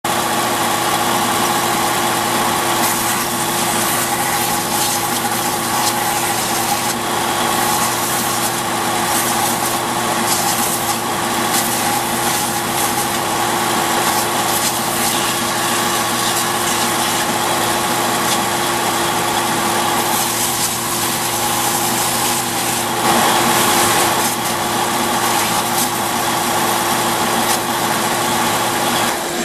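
Bench belt sander running steadily with a constant motor hum, while a small stick is held against the moving abrasive belt to sand off its bark, adding a rough grinding rasp. The grinding is loudest about three-quarters of the way through.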